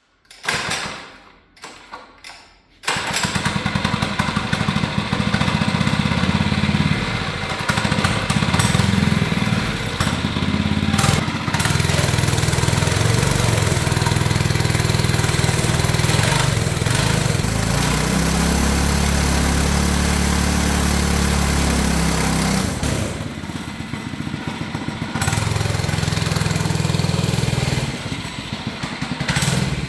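Mini bike's Predator 212 single-cylinder four-stroke engine cranked twice and catching about three seconds in. It then runs loudly, its speed rising and falling, with a steadier lower stretch around the middle.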